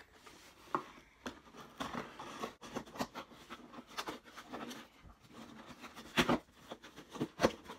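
A cardboard shipping box being opened: scissors cutting through the packing tape, then the cardboard being pulled and handled. A run of irregular clicks, scrapes and rustles, with the loudest snaps near the end.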